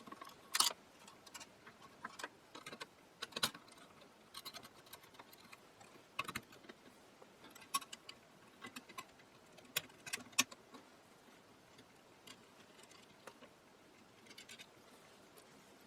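Faint, irregular clicks and taps of small metal parts and hand tools being handled as a capacitor is fitted into place, with a few sharper knocks among them.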